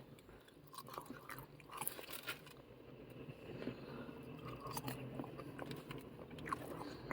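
A person chewing battered chip-shop chips close to the microphone, with irregular small crunches and mouth noises.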